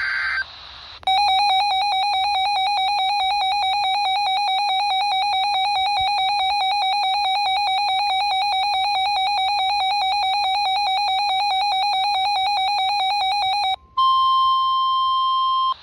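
NOAA Weather Radio alert tones for a severe thunderstorm warning. A brief burst of data screech comes first, then about twelve seconds of a fast-warbling electronic alarm. Near the end it switches to a steady single tone near 1 kHz, the weather-radio warning alert tone.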